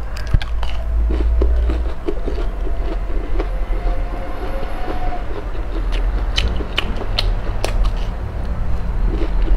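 Close-miked chewing and crunching of crisp battered fried rings, a quick run of small crunches over a deep low rumble, with a few sharper crackling bites between about six and eight seconds in.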